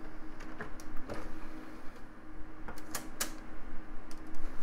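Disc tray of an LG CD-RW/DVD-ROM combo drive pushed shut by hand, with a few clicks and knocks, the sharpest two about three seconds in, over the steady hum of a desktop PC's cooling fans.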